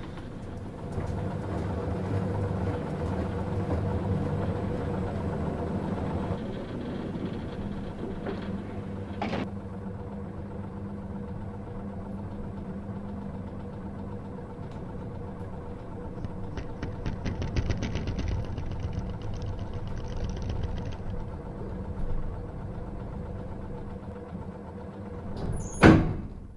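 Elevator machinery running as the car travels in its shaft: a steady low hum with a single knock about nine seconds in and a fast run of fine clicks partway through. A loud clunk near the end as the car arrives at the floor.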